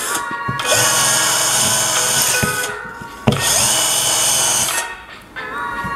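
Cordless drill spinning a denim buffing wheel against a piece of wood, buffing wax into it. It runs twice for about two seconds each, the pitch rising briefly as it spins up at the start of each run.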